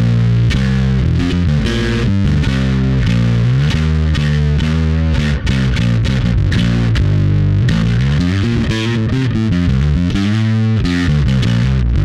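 Electric bass played through an EarthQuaker Devices Blumes Low Signal Shredder distortion pedal with the gain raised, a continuous line of quick, distorted notes.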